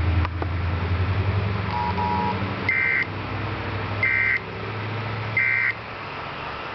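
Emergency Alert System end-of-message signal: three short bursts of high-pitched data tones, about a second and a half apart, marking the end of the alert. Two brief beeps come just before them, and a steady low hum runs underneath.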